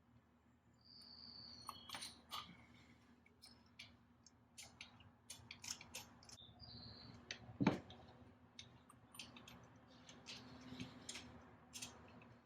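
Scattered light clicks and metallic taps of hand tools and spark plug parts being handled during spark plug work on an engine, with one louder knock a little past halfway.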